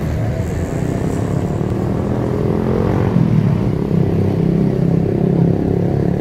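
City street traffic: a motor vehicle's engine running close by, getting louder about halfway through.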